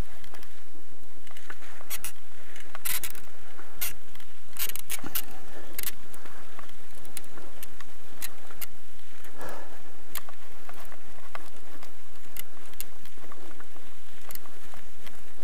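Bicycle rolling over a sandy, rutted dirt road: tyres on sand and loose gravel, with irregular sharp clicks and rattles as the bike jolts over bumps.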